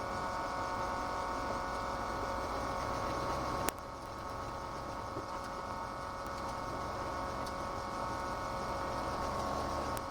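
Ford GT40's V8 engine running at a steady cruising speed, heard from inside the cockpit. A single sharp click comes a little under four seconds in, after which the sound is slightly quieter.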